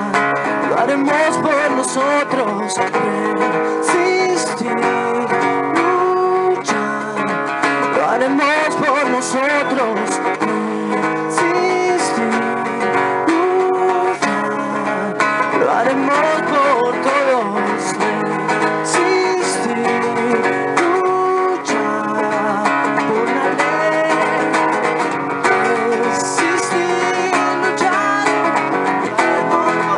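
Acoustic guitar strummed steadily, with a man singing over it in a live song performance.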